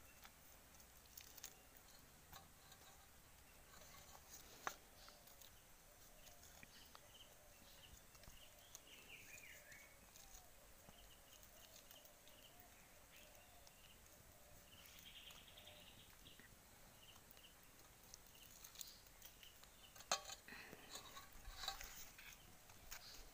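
Near silence with faint handling noise: soft clicks and taps as fingers peel charred skin off roasted eggplants in steel bowls. There is a sharper tap about five seconds in and a run of clicks near the end, with a few faint chirps in the background.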